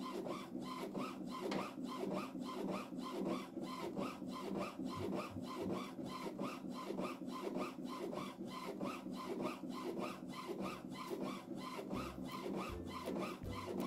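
Inkjet printer printing a sheet of stickers: the print head shuttles back and forth in a quick, even rhythm of about four passes a second over a steady low hum, feeding the sheet out as it goes.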